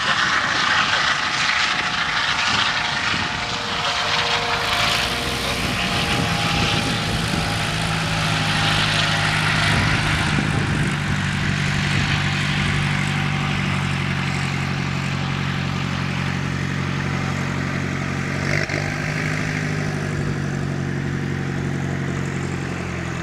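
Eurocopter EC135 twin-turbine police helicopter lifting off and flying away: rotor and turbine noise, the high hiss strongest early and easing as it departs, with a steady low hum from about five seconds in.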